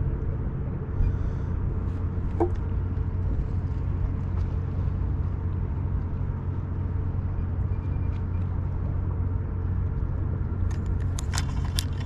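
Boat motor running steadily at low speed, a constant low hum. A quick run of clicks and rattles about a second before the end.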